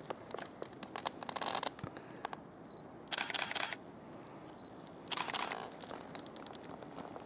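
DSLR camera shutter firing in three short rapid bursts, about a second in, about three seconds in and about five seconds in, with scattered single clicks between them.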